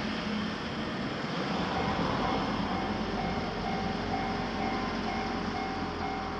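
Japanese railroad crossing's electronic warning bell starting to ring about two seconds in, a steady ding about twice a second, which signals that a train is approaching and the gates are lowering. Under it runs the rumble of passing traffic.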